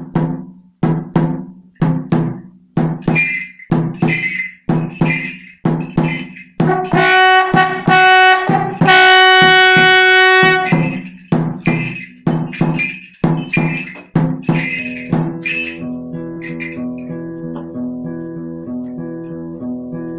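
Instrumental opening of a folk song. A hand-held frame drum is beaten at about two strokes a second. Midway it stops for two long held notes on a brassy-sounding wind instrument, then the drum comes back, and from about three-quarters of the way in an acoustic guitar plays steady picked notes.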